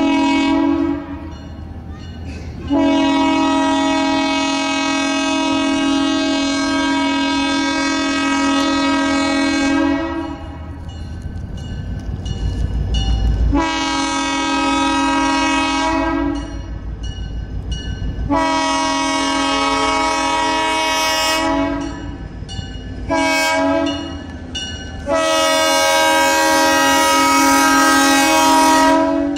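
Portland & Western diesel locomotive's multi-note air horn sounding for a grade crossing: a short toot, then three long blasts, a short one and a final long blast, each a steady chord. Between blasts the locomotive's diesel engine and the freight train rumble as it rolls up to the crossing.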